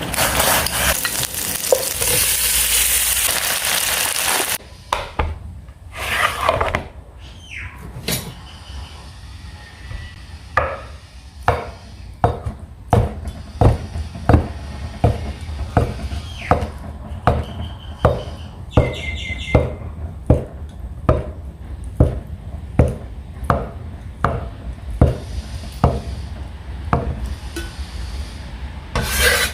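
Food sizzling in a hot pan for the first few seconds, cutting off suddenly; then a kitchen knife chopping on a cutting board in steady, even strokes, about one every three-quarters of a second.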